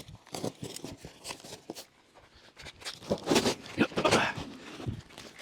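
Packaging being cut and torn open: a string of irregular rips, scrapes and crinkles, busiest past the middle.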